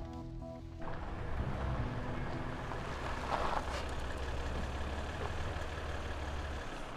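A motor vehicle's engine runs with a steady low rumble, then stops shortly before the end, with a brief rustle in the middle. Background music fades out about a second in.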